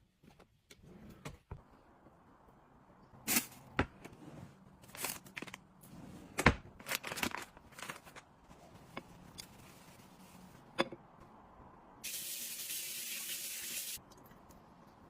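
Scattered clicks and taps of items being handled, then a steady spray hissing for about two seconds near the end.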